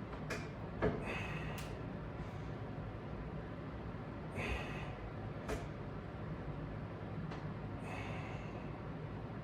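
A person breathing hard while doing resistance-band bench press reps: about five short, forceful exhalations spread out, over a steady low hum.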